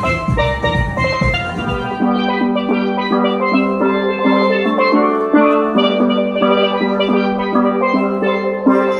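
A steel pan band playing an upbeat tune. For the first two seconds a drum beat sounds underneath; then the music cuts to steel pans alone, playing quick repeated notes.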